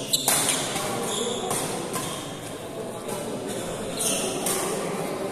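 Badminton rally: a sharp racket strike on the shuttlecock just after the start, then short high squeaks of shoes on the court a few times, over a steady murmur of spectators' voices.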